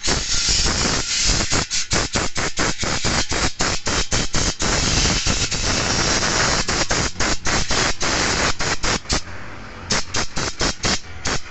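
Compressed-air blow gun blowing in rapid short bursts of hiss, clearing buffing dust from the scraped inside of a truck tire, with a brief lull near the end.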